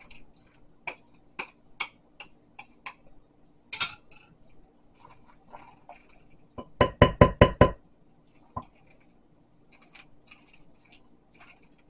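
Wooden spoon stirring a thick mayonnaise-dressed pasta salad in a glass bowl: soft wet squishes and light clicks of the spoon against the glass. A little past halfway comes a quick run of about six louder, ringing knocks of the spoon on the bowl.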